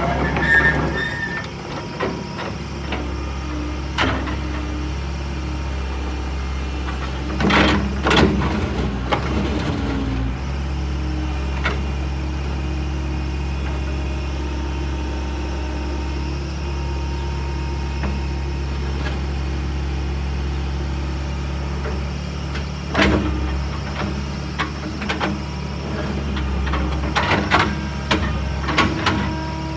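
JCB JS130 tracked excavator's diesel engine running steadily while the boom, arm and bucket are worked, its note shifting about ten seconds in. Short knocks and clunks from the machine come now and then, in clusters around eight seconds in and near the end.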